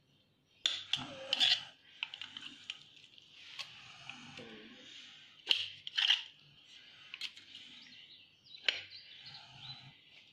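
A kitchen knife clinking and scraping on a stainless steel plate as soft roasted brinjal is cut open, with a scattering of sharp clinks among quieter scraping.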